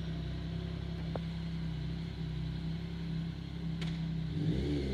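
Yamaha MT-09's three-cylinder engine idling steadily, with two light clicks, then revving up near the end as the bike pulls away.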